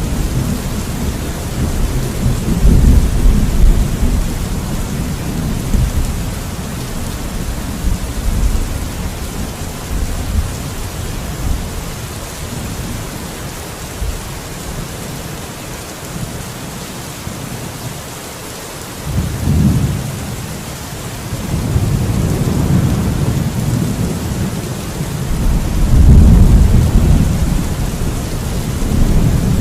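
Steady rain falling, with rolling thunder rumbling under it in long swells; the thunder dies down in the middle, then a new rumble starts about two-thirds of the way in, swelling loudest near the end.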